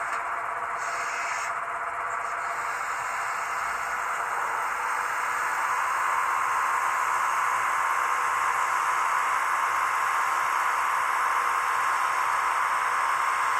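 An N-scale model snow-blower locomotive's small electric motor and gears running, a steady whirring hiss that grows louder about six seconds in, with a steady whine joining it.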